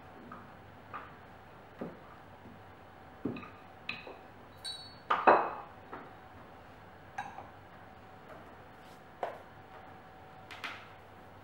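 Scattered light knocks and clinks of baking tools on a pastry board: a wooden rolling pin set down and a round metal pastry cutter handled and pressed into rolled pastry, with a few short metallic pings and the loudest knock about five seconds in.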